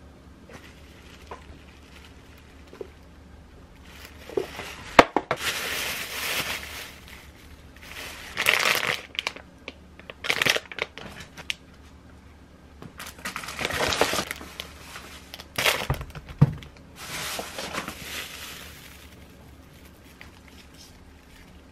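Plastic grocery packaging and bags crinkling and rustling as items are handled, in several irregular bursts, with a couple of sharp knocks.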